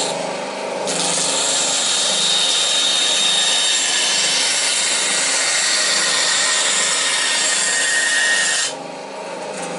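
Benchtop bandsaw running while its blade cuts through a thin wooden template board: a steady high hiss with a faint whine from about a second in, stopping shortly before the end while the saw's motor keeps running.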